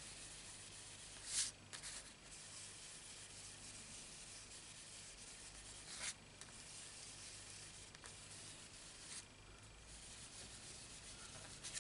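Faint rubbing of a makeup brush swept over card stock, blending ink around the edges of a small stamped card panel, with a few brief, slightly louder scuffs.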